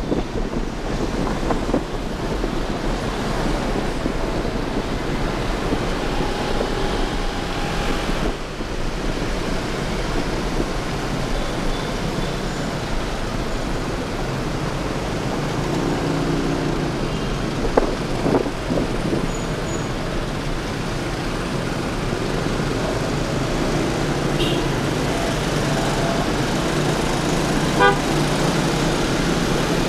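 Motorbike ride through city traffic: steady road and wind noise with the rumble of engines, and other vehicles' horns tooting briefly several times.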